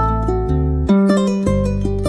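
Hawaiian music with no singing: a ukulele picking a run of quick plucked notes over steady bass notes.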